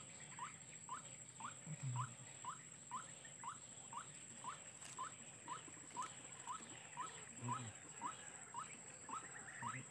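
White-breasted waterhen calling: a short rising note repeated steadily about twice a second, over a steady high-pitched whine.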